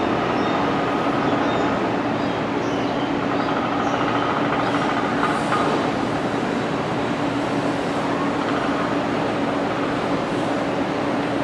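Passenger train coaches rolling slowly over the station tracks: a steady rumble with a constant hum underneath, and a faint high squeal from about four to six seconds in.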